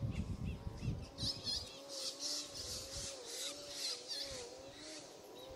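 Birds calling in short, repeated chirps over a faint wavering hum, with a few low handling bumps in the first second or so.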